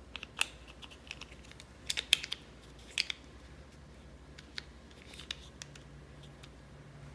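Plastic parts of a Traxxas EZ-Start starter gearbox housing clicking and tapping as they are handled and fitted together over the gears. The clicks come in an irregular scatter of short, sharp ticks, the loudest cluster about two seconds in.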